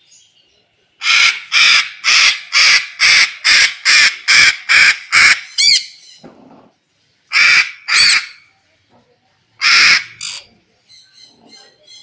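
White cockatoo screeching: a rapid run of about ten harsh squawks, roughly two a second, ending in a wavering call, then two more pairs of squawks.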